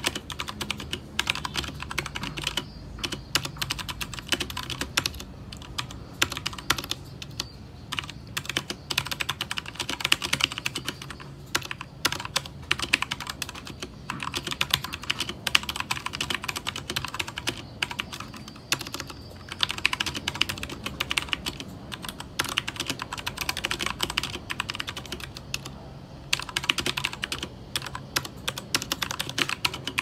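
Fast typing on an RKG68 (RK68) 65% mechanical keyboard with stock RK brown tactile switches, the keys bottoming out: a quick, uneven clatter of keystrokes with a few brief pauses.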